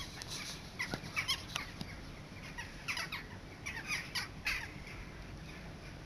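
A large flock of crows circling overhead, many birds cawing at once in short overlapping calls that thin out near the end.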